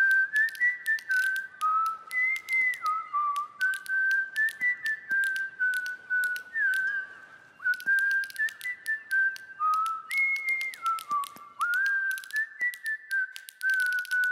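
A whistled melody of short stepping notes with a few small slides, over a light clicking beat: end-credits music.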